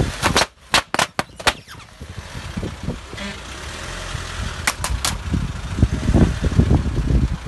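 Long twisting balloons bursting under a slowly rolling car tyre: a quick run of sharp pops in the first second and a half, three more about five seconds in, over the low rumble of the car.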